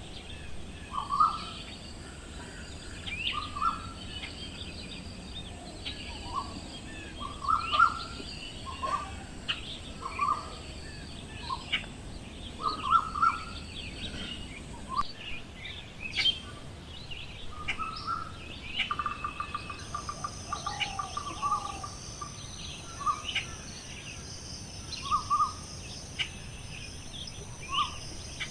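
Birds chirping and calling: many short, separate chirps over a steady outdoor background, with a rapid trill around two-thirds of the way through. A steady high-pitched tone joins about twenty seconds in.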